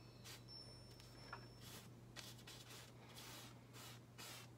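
Near silence with faint, short swishes of a brush dragging oil paint across canvas, over a low steady hum.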